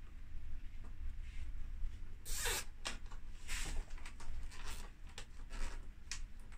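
Hands working the white wiring bundle inside an opened Tefal dehumidifier: a series of short rasping, scraping plastic sounds, the longest and loudest about two and a half seconds in.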